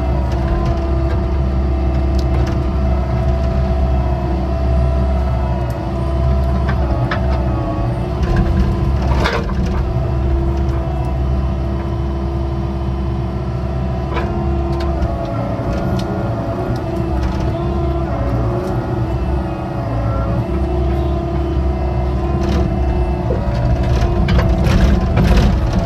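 Excavator running steadily while digging a ditch, its bucket crunching and cracking through soil, with sharp cracks scattered throughout and more of them near the end.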